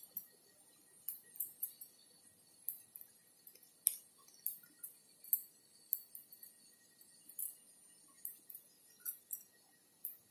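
Cat crunching dry food off a tiled floor: irregular sharp clicks, about two a second, with one louder click about four seconds in.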